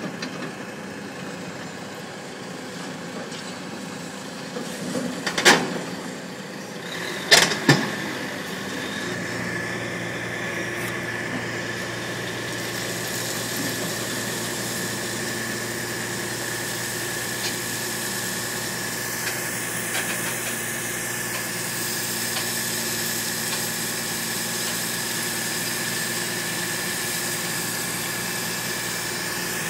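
Diesel engine of a tipper truck running steadily, its drone growing fuller about nine seconds in as the hydraulic tipper raises the bed of gravel. Two loud bangs, about two seconds apart, come a few seconds in.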